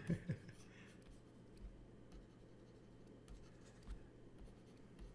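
Faint scratching of a stylus drawing on a graphics tablet, with a few light taps.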